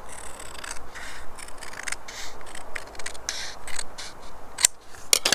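Scissors cutting paper card in a run of short snips, with a couple of sharper clicks near the end.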